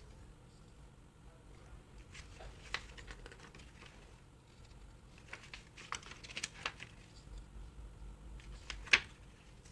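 Packaging of a CD album deluxe edition being handled: light paper and card rustling with scattered taps and clicks, a sharper click about nine seconds in.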